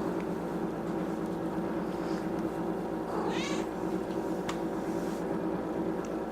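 A cat meows once, a short call about three seconds in, over a steady low hum.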